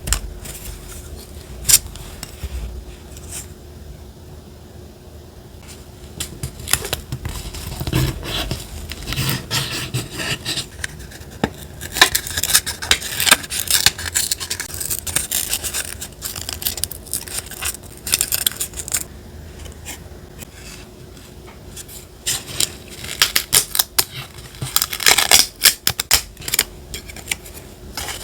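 Close-up paper-crafting sounds: paper and collage materials being handled and rubbed, with irregular scraping, rustling and crisp clicks. They are busiest from about twelve seconds in and again near the end.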